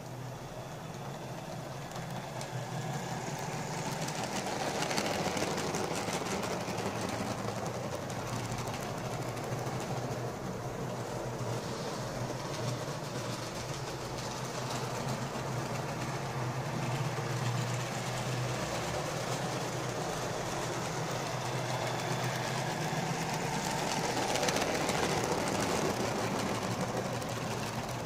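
Lima OO-gauge Class 20 model diesel locomotive running on the track: a steady electric-motor hum with a rattle over it, growing louder about five seconds in and again near the end as it passes close.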